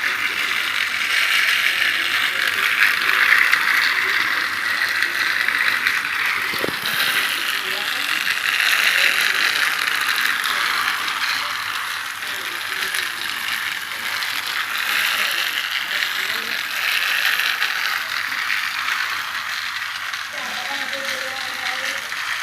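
Battery-powered toy train running on its plastic track, with a steady mechanical whir from its small motor and plastic gears.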